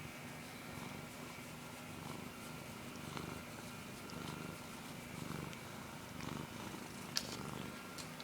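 Cat snoring: a low rumble that swells and eases with each breath, about once a second. A sharp click near the end.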